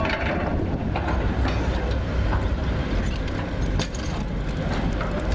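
Diesel engines of M3 amphibious bridging vehicles running steadily on the water, with scattered metallic clanks from the coupled units as they are assembled into a ferry.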